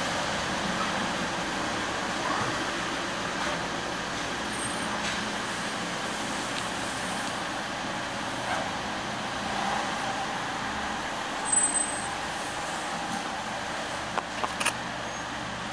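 Steady background noise, an even rushing hiss, with a few short louder sounds about three-quarters of the way through and again near the end.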